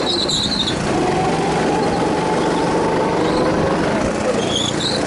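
Go-kart engine running under throttle, its pitch climbing steadily for a couple of seconds and then dropping near the end, with brief high squeals near the start and near the end.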